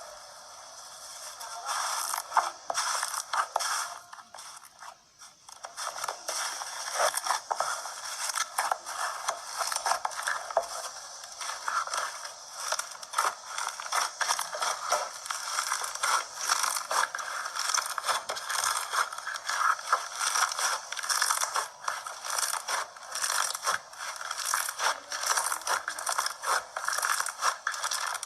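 Slime being squeezed and worked by hand, giving a dense run of crackling clicks and squelchy scrapes that starts about a second and a half in and eases off briefly around the fifth second.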